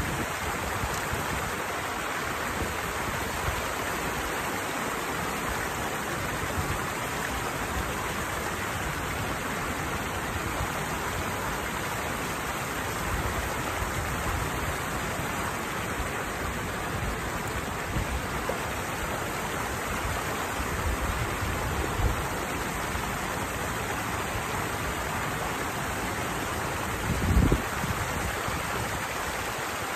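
Steady rush of water pouring down a small cascade. A few brief low thumps, the loudest near the end.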